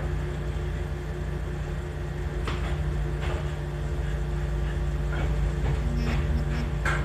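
Electric train car running, heard from inside the carriage: a steady low rumble with a constant hum. Several short knocks or rattles come from about two and a half seconds in, the loudest near the end.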